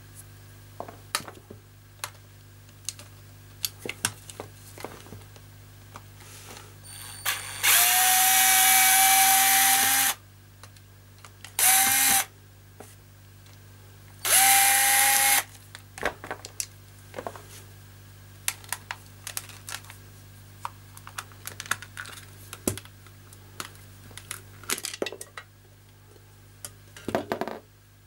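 Cordless drill-driver backing screws out of a plastic hair dryer casing. It runs three times: once for about two and a half seconds, then briefly, then for about a second, each run spinning up to a steady whine. Between the runs come clicks and knocks of the plastic housing and screws being handled.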